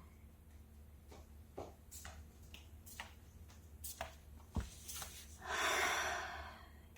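Handling noises: scattered light clicks and knocks, one sharper knock past the middle, then a rustling whoosh lasting about a second near the end, over a low steady hum.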